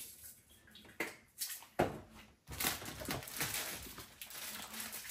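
A few light knocks on the counter, then a plastic sprinkles packet being handled and shaken out, crinkling and rustling.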